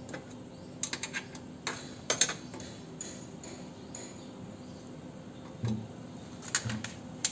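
Scattered metallic clicks and clinks of hand tools and mounting hardware as a car horn is bolted in place, the loudest cluster about two seconds in, with a duller knock later on.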